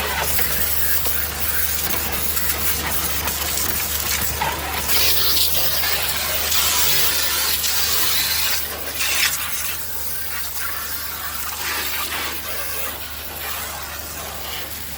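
Water spraying and splashing with a steady hiss that swells a few seconds in, over a constant low hum.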